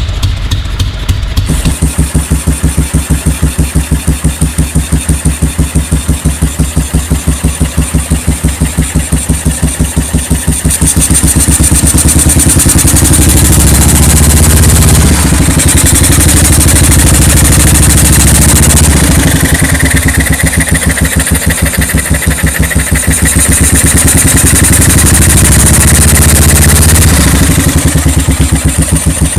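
1955 BMW R25/3's 247 cc single-cylinder four-stroke engine running with a soft, even exhaust beat. It idles, the revs rise about ten seconds in and stay up through the middle with a brief dip, then fall back to idle near the end.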